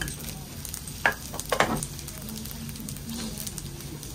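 Gopchang sizzling steadily in a hot tabletop pan, with two sharp clinks of a dish or spoon about a second and a second and a half in.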